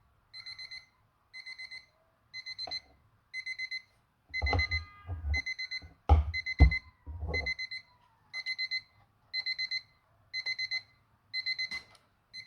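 Electronic alarm of a vintage-style alarm clock beeping in short groups of quick high beeps, about one and a half groups a second. From about four seconds in, a few seconds of heavy knocks and handling clatter sound over it, the loudest two sharp knocks coming about six seconds in.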